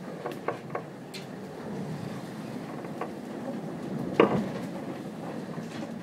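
Rough sea rushing and hissing along a sailing yacht's hull in near-gale wind, with wind buffeting the microphone. Spray and breaking water slap against the boat several times, the hardest hit about four seconds in.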